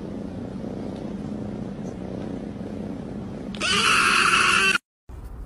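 Domestic cat purring steadily, then letting out one loud, drawn-out meow about three and a half seconds in that lasts just over a second and is cut off abruptly.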